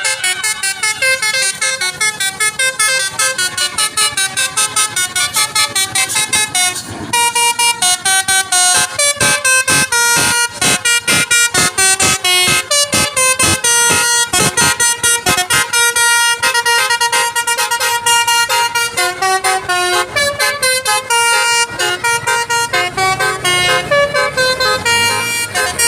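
Telolet basuri bus horn playing a fast melody of short, clipped notes, one tune running into the next, with no pause.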